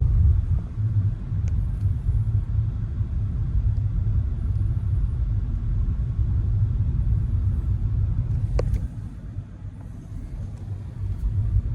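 Steady low rumble of a car driving, with a single brief click about eight and a half seconds in; it cuts off abruptly near the end.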